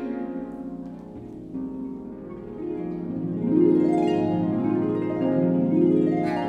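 Concert pedal harp played solo: plucked notes ring and overlap, softer at first, then growing louder with busy figures from about halfway through.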